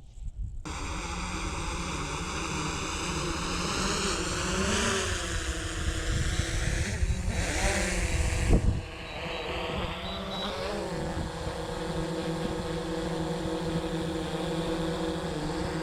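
A vehicle engine running steadily as it drives along, its pitch rising and falling a little, with one sharp thump a little past halfway through.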